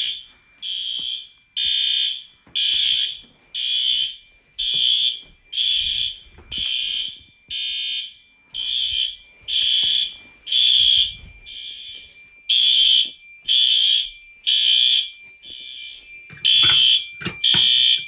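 Fire alarm horn-strobes sounding after a manual pull station has been pulled, with the system in alarm. The horns blast in an even, loud pulse about once a second, over a faint steady high tone. A few sharp clicks come near the end.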